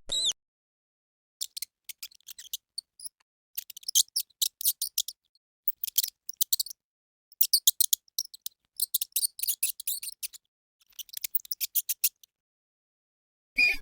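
Mouse squeaking: a single squeak at the start, then clusters of rapid, short, high-pitched chirps, each cluster lasting about a second with brief pauses between, and another squeak near the end.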